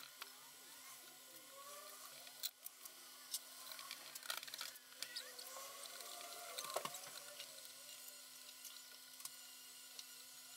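Faint clicks and taps of a steel Allen key and small cap screws against aluminium clamp brackets as the steering rack's clamp bolts are done up, with a few faint squeaks. The sharpest click comes about seven seconds in.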